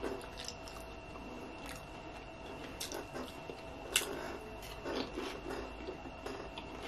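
Close-up eating sounds of loaded nachos: chewing with scattered small clicks and smacks, and a sharp bite into a tortilla chip about four seconds in.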